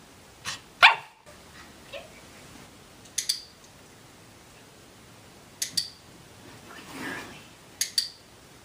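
Puppy giving short, sharp barks in quick pairs, four times.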